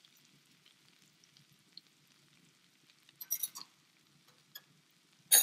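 Garlic, curry leaves and whole dried red chillies frying in oil and butter in a stainless steel pan: a faint steady sizzle with scattered small pops. A short run of clicks comes about three seconds in, and a sharp knock just before the end.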